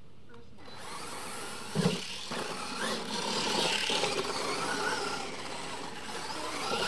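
Losi LMT radio-controlled monster trucks launching off the start and racing on dirt: electric motors whining and tyres churning through loose dirt, with a sharp thump about two seconds in.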